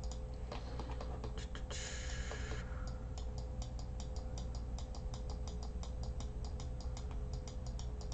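Computer mouse clicking rapidly, several clicks a second, during sculpting in Blender, over a low steady hum. A short hiss comes about two seconds in.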